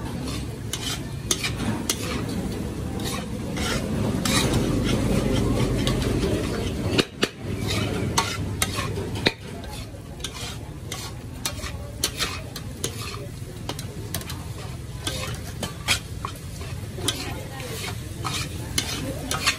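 Metal spatula scraping and knocking against a large metal wok as shrimp fried rice is stir-fried, with many sharp scrapes and clinks over the sizzle of the frying rice. The low sizzle is louder in the first part and eases after about nine seconds.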